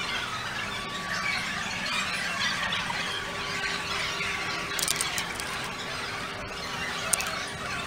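A dense din of shrill squealing calls from animals in a tropical zoo house, running on without a break. A few sharp clicks sound about five seconds in and near the end.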